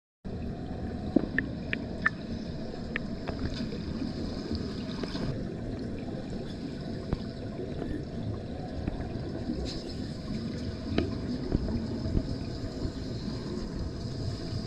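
Muffled underwater noise picked up by a camera below the surface of a diving pool: a dense, low rumble of moving water and bubbling, with a few sharp ticks in the first few seconds.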